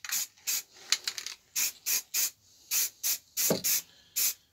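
Aerosol spray can of satin black paint hissing in short bursts, about two a second, as a thin coat is put on.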